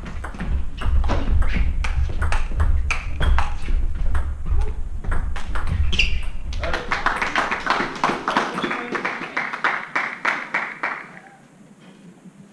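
Table tennis rally: the celluloid ball clicks sharply off the bats and table in quick succession, with a brief shoe squeak about six seconds in. Spectators' voices rise over the last clicks, and all dies down about a second before the end.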